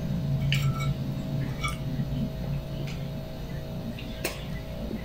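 A spoon clicking and scraping against a plastic plate a few times during eating, over a steady low hum.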